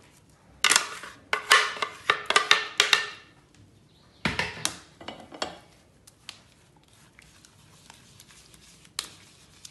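Kitchen utensils clattering as blended pumpkin is strained: a spoon scraping and knocking in a sieve over a bowl. The clatter comes in two busy spells, about a second in and around four seconds in, then only a few light taps.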